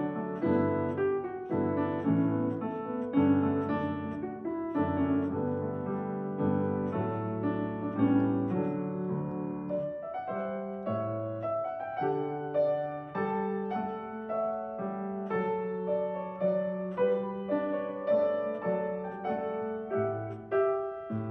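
Piano playing a slow postlude, with a melody over sustained chords and bass notes.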